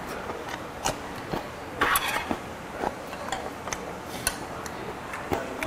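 Metal chopsticks and utensils clicking against dishes and bowls in scattered light clicks, with a longer noisy burst about two seconds in.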